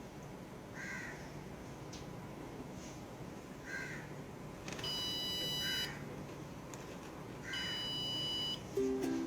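A door alarm's buzzer sounds two steady, high-pitched beeps, each about a second long and about two and a half seconds apart. Short calls sound about four times in the background over a low hum.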